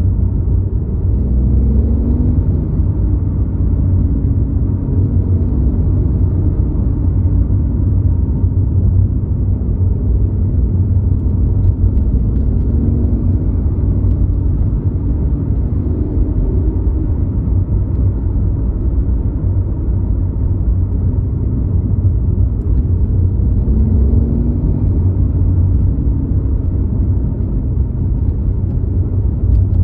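BMW i8 hybrid sports car driving. A steady low rumble, with a pitched engine note that rises and falls several times as the car speeds up and slows.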